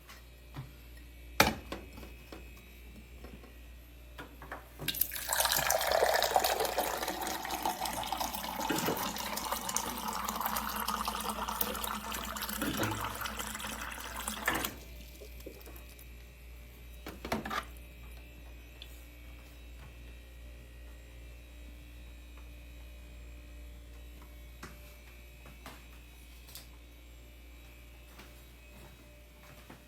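Water pouring into a container for about ten seconds, starting about five seconds in, with a sharp click before it and another after it. A low steady hum runs underneath.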